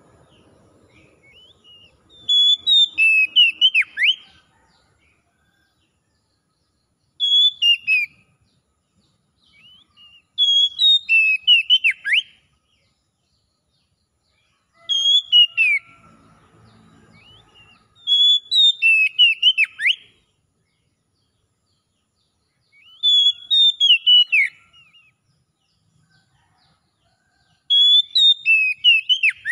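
Oriental magpie-robin singing: seven short phrases of clear whistled notes, many sliding downward, with pauses of a few seconds between them.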